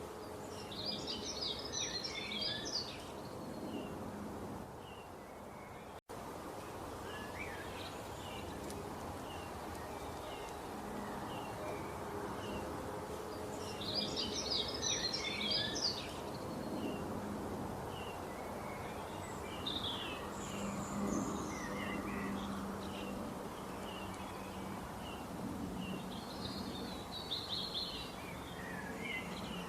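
Small birds chirping and twittering in quick high bursts, thickest about a second in and again around halfway, over a steady background hiss. The sound briefly drops out at one point about six seconds in.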